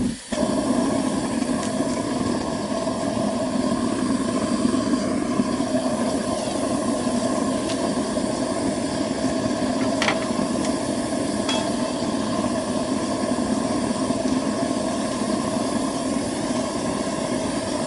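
Propane-fired waste oil burner on a barrel furnace catching suddenly at the start, then burning with a loud, steady rushing noise of flame and gas.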